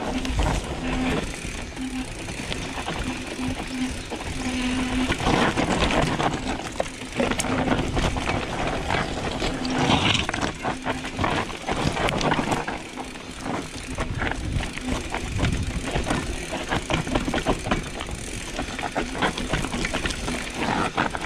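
Mountain bike running down a rough downhill trail: tyres crunching over dirt and rocks, with dense rattling and knocking from the bike. A short buzzing tone comes and goes throughout.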